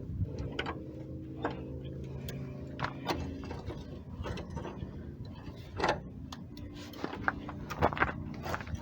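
A wrench working a seized, rusted truck-bed bolt from underneath: irregular metallic clicks, knocks and scrapes as the tool slips and bites without freeing it. A steady low hum sits under it for the first few seconds.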